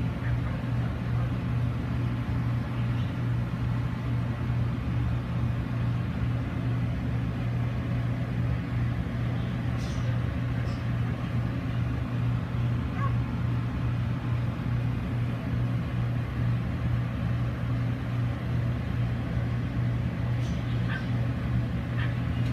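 A steady low hum, with a few faint, short dog barks about ten seconds in and near the end.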